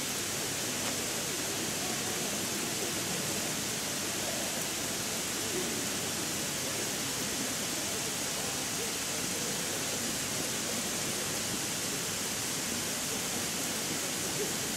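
Steady hiss of water spraying from overhead sprinkler heads and falling as fine rain onto the paving.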